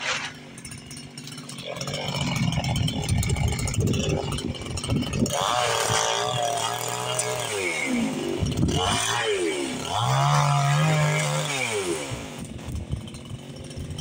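Gas chainsaw running, quieter at first, then revved up and down several times from about five seconds in before holding a steady note and easing off near the end.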